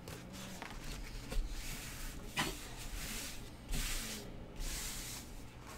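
Rustling and crinkling of a rolled, film-covered diamond-painting canvas as it is unrolled and smoothed flat by hand on a light pad, with a single soft knock about two and a half seconds in.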